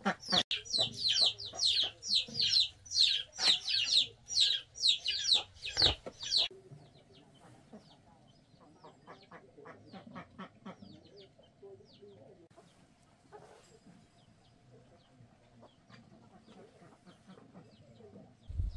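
Chickens calling: a rapid run of short, high, falling peeps, about three a second, for the first six seconds or so, then fainter, scattered calls.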